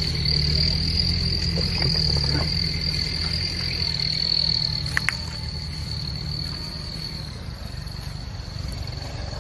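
Insects droning in one steady, high, continuous tone over a low rumble, the drone fading after about seven seconds, with a single short click about five seconds in.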